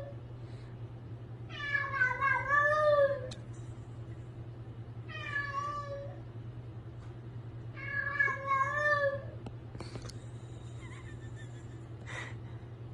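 A domestic cat meowing three times in long, wavering, drawn-out calls, the first the longest and loudest. A steady low hum runs underneath.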